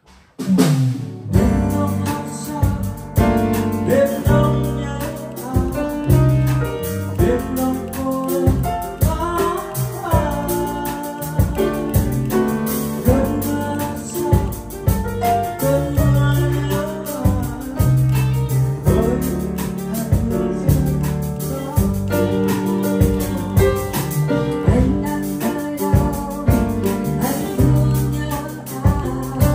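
Live jam of piano and electric guitar accompanying a singer, with a strong low bass line; it comes in just after a brief gap at the very start.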